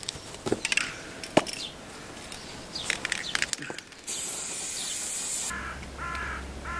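Aerosol spray-paint can: clicks and rattles as it is handled, then a steady hiss of spraying for about a second and a half. After that, crows cawing repeatedly, about twice a second.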